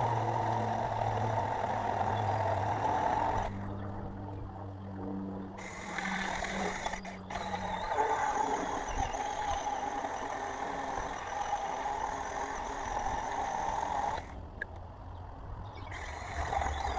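Cordless mini chainsaw with a 4-inch bar cutting into a white pine trunk, its small electric motor and chain whining steadily. The whine drops away twice for a second or two as the cutting pauses.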